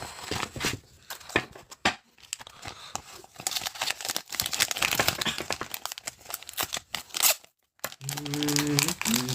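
Crinkly plastic packaging being handled and torn open, a dense crackle of crinkles and snaps, with a short low hummed tone near the end.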